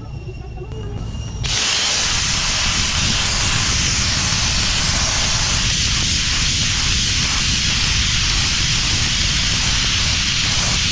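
Sandblasting nozzle opening about a second and a half in and then blasting steadily: a loud, even hiss of compressed air and abrasive against the steel tipper body, over a constant low rumble.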